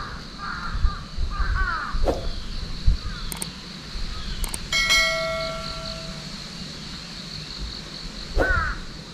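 Crows cawing, several harsh caws in the first two seconds and another near the end. About halfway, a single metallic ding rings out for about a second.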